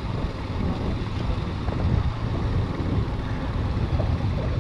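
Wind and road noise on a moving Bajaj Pulsar RS200 motorcycle: a steady, dense low rumble, with the engine buried beneath it.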